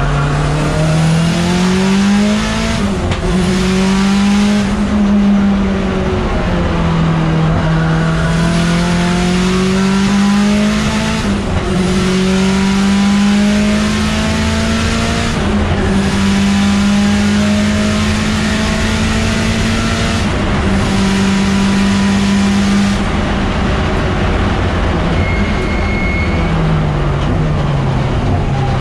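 Turbocharged 2.0-litre four-cylinder engine of a Mitsubishi Lancer Evolution X race car, heard from inside the cabin under hard acceleration. Its pitch climbs and dips several times, holds high through the middle, then falls away near the end as the car slows.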